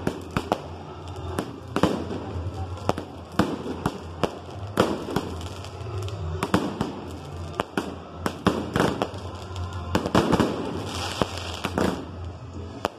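Aerial fireworks display: a rapid, uneven series of sharp shell bursts and bangs, coming thickest about ten seconds in.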